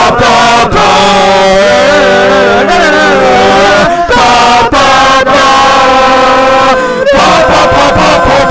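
One person's voice, layered in several parts, singing a marching band's brass and wind music a cappella: held chords with gliding vocal lines, breaking off briefly about four and seven seconds in.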